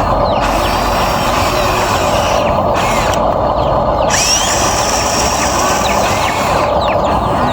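Steady electric whir of a Huina RC excavator's motors at work, with short high chirps and glides above it.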